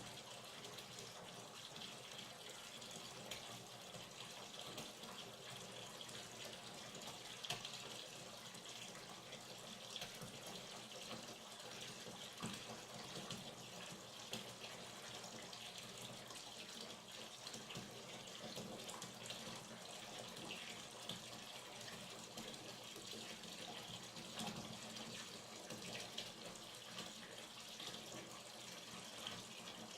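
Hot water running from a tap into a bathtub as it fills, a steady splashing stream with small irregular splashes.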